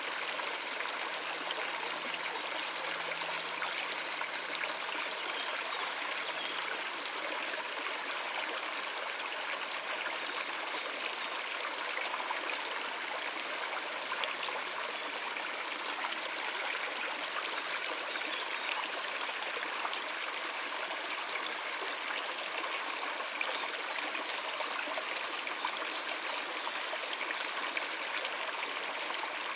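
Shallow stream of water running over rocks, a steady, even rush and babble.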